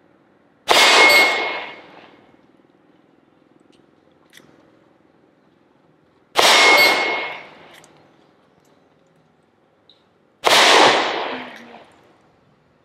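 Three shots from a Taurus M85SS snub-nose revolver chambered in .357 Magnum, spaced about four to six seconds apart. Each shot is followed by a clanging ring from a steel target, trailing off over about a second.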